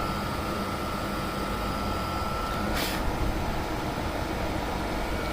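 Automotive smoke machine running steadily as it pushes smoke into the intake for a leak test: an even hum with a thin steady high tone above it. There is one short hiss about three seconds in.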